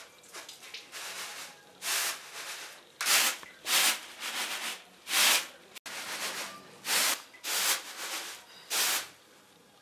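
Rice grains swishing in a flat woven winnowing basket as it is tossed and shaken. It comes as a string of short swishes, roughly one every half second to second, the loudest a few seconds in.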